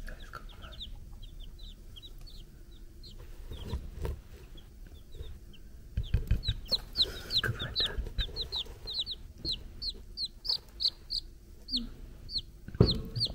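Three-day-old chicks peeping: a string of short, high notes, each falling in pitch. The notes are sparse at first and come several a second from about six seconds in, with a few low bumps of handling among them.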